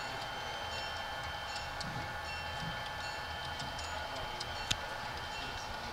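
Model freight train of covered hopper cars rolling across a trestle: a steady rolling hum with light, scattered clicks, and one sharper click about three-quarters of the way through.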